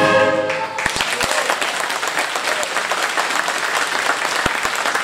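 A concert wind band's held final chord cuts off about half a second in, and the audience breaks into applause, which carries on steadily.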